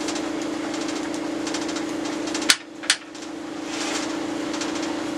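Oneway 2436 lathe tailstock being pushed along the cast-iron bed, scraping and dragging instead of gliding, with two sharp knocks about halfway through. It slides badly because it is riding on debris left on the bed and in the tailstock's underside. A steady hum runs underneath.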